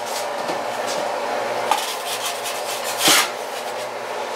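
A kitchen oven door pulled open, with one sharp clunk about three seconds in and a couple of small clicks before it, over a steady background hum.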